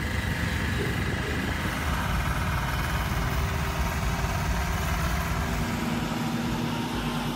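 Heavy-haul truck's diesel engine running steadily, a low rumble with a rapid pulse.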